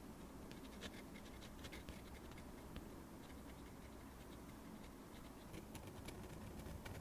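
Faint scratching of a drawing tool drawn across the painting surface as lines are laid down, with scattered light ticks over a low steady background hum.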